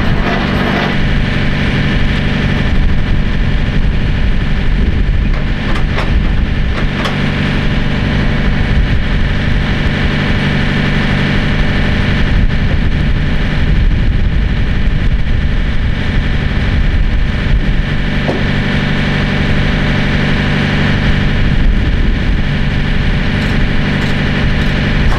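Semi truck's diesel engine idling steadily, with a couple of faint clicks about six and seven seconds in.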